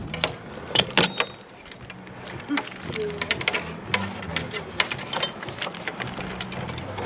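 Irregular sharp clicks and clacks of tools and hardware being handled, loudest about a second in, over a low steady hum.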